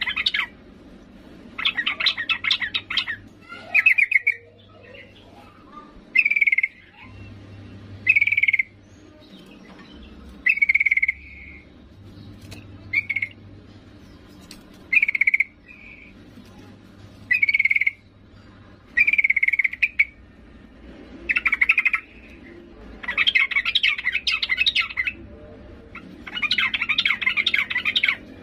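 Yellow-vented bulbul calling: short sharp notes about every two seconds, broken by longer rapid chattering bouts near the start and near the end. The call of a female bulbul calling to a male.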